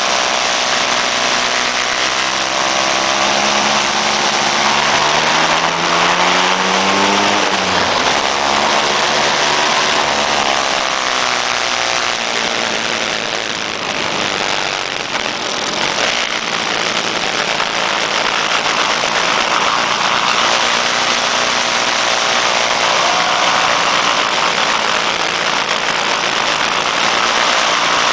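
Motor scooter engines running on the move, their pitch climbing over the first several seconds, dropping about eight seconds in, then rising and falling with the throttle. Heavy wind rush over the microphone of the moving scooter.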